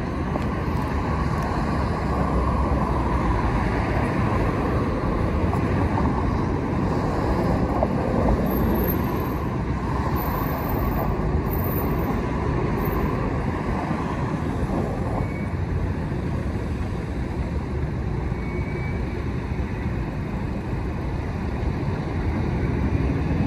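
Street traffic: the steady rumble of passing and idling cars, with wind buffeting the microphone.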